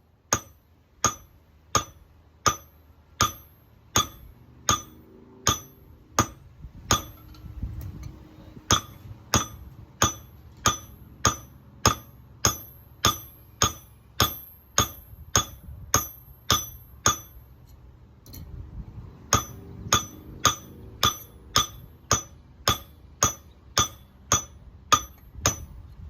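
Hand hammer striking cold steel on an anvil, cold-forging a small blade: a steady run of ringing metallic blows, speeding up from a little over one a second to about two a second, with a short pause about two-thirds of the way through before the hammering resumes.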